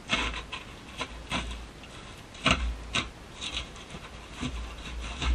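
SOG Seal Pup fixed-blade knife slicing through packing tape along the seam of a cardboard box, in a series of short scraping cuts, the loudest about two and a half seconds in.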